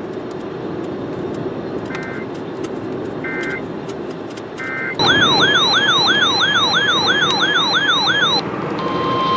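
NOAA Weather Radio alert sequence: three short warbly bursts of SAME digital header data, then a loud siren-like alarm warbling about three times a second for a few seconds. Near the end the steady 1050 Hz weather alert tone begins, the signal that a new warning follows.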